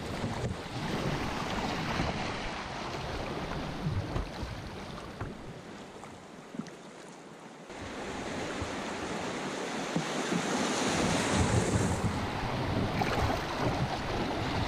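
Rushing whitewater of shallow river rapids around a canoe as it runs them, with wind buffeting the microphone. The rush falls quieter about six seconds in, then comes back suddenly and louder a moment later.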